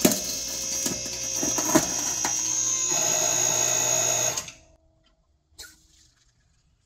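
Hydraulic press running under load, a steady motor-and-pump whine with a low hum, as the ram squeezes a golf ball. It gives a sharp crack at the start and another, louder one about a second and three-quarters in, then stops suddenly after about four and a half seconds. A single faint click follows.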